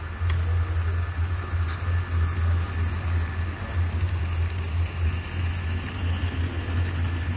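Model freight train rolling past, pulled by a model diesel locomotive, with a light rattle of wheels on track that grows about five seconds in, over a steady low hum.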